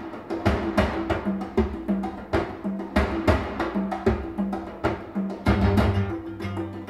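Music played from a vinyl record through a 6L6 tube amplifier and Tannoy Precision 6.2 speakers. It is an instrumental passage with no vocals: sharp percussion strikes, about three a second, over held bass notes, with a heavier bass coming in about halfway through.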